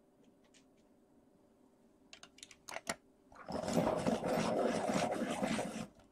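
A few light clicks of coloured pencils knocking together, then a loud, steady rasping lasting about two and a half seconds: a wooden Caran d'Ache Pablo coloured pencil being sharpened.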